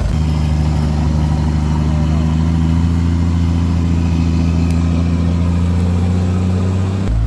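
Off-road 4x4 vehicle engine running steadily at a constant pitch. The note changes abruptly near the end.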